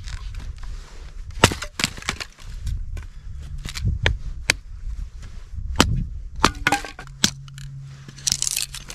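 Hatchet splitting a stick of firewood into kindling: a string of irregular sharp knocks and cracks as the blade bites in and the wood splits apart, over a low steady rumble.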